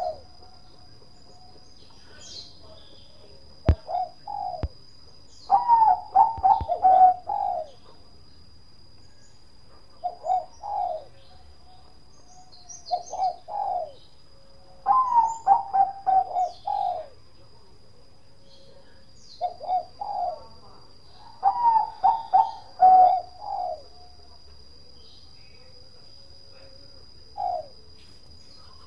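Bangkok-strain zebra dove (perkutut) singing its cooing song in short bouts of quick repeated coos every few seconds, with pauses between. A faint steady high-pitched whine runs underneath, and two sharp clicks come about four seconds in.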